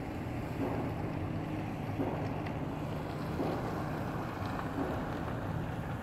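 Distant pile driver striking piles, a dull blow about every second and a half (about four in all), over a steady low rumble of street traffic and wind on the microphone.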